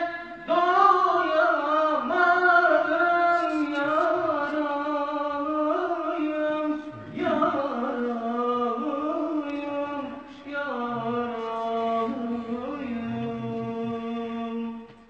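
A man singing an unaccompanied Turkish Islamic hymn (ilahi) solo, with long held, ornamented notes. He stops briefly for breath about seven and about ten seconds in.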